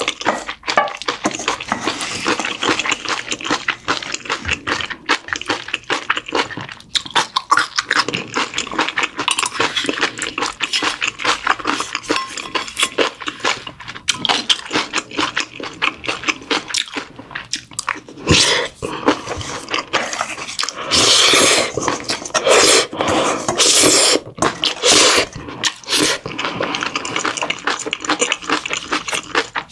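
Close-miked eating sounds: chewing and smacking mouthfuls of radish and young-radish kimchi bibimbap, with a metal spoon scraping and clinking in a stainless steel bowl. Several louder bursts come in the second half.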